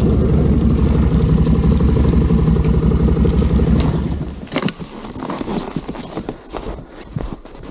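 ATV engine running steadily with an even low pulsing note, which cuts off abruptly about four seconds in. Irregular crunches and clicks follow.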